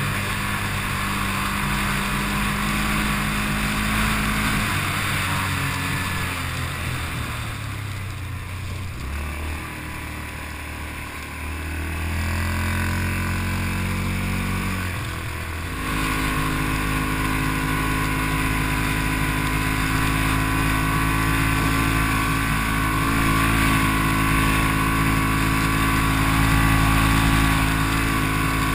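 Engine of an off-road quad or side-by-side running under way on a trail. Its pitch steps down and back up several times as the throttle and gears change, with wind and terrain noise behind it.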